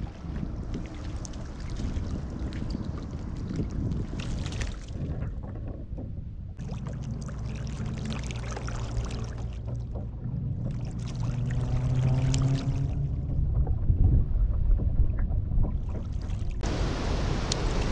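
A kayak moving through water, with water washing along its hull. In the middle stretch a low hum rises slowly in pitch.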